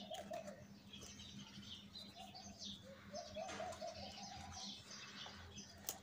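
Cardboard box flaps being pulled open and handled, with a few sharp taps and crackles, the sharpest near the end. Behind it, faint birds call steadily: a repeated cooing with higher chirps over it.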